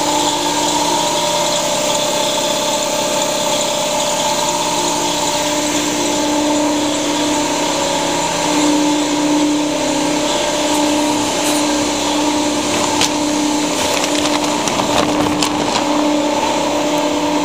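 Large vertical electric air compressor running steadily, its motor and pump giving a constant pitched drone over a steady mechanical hum.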